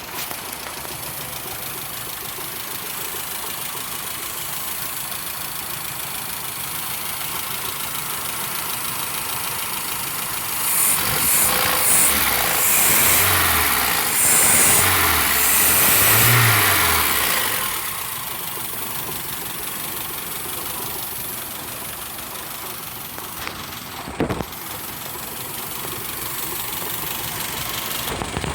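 Volkswagen AP 1.8 four-cylinder car engine idling, blipped up and down three times about ten seconds in, then settling back to idle. It runs without the piston-skirt slap, which the owner credits to an oil additive. A single sharp click near the end.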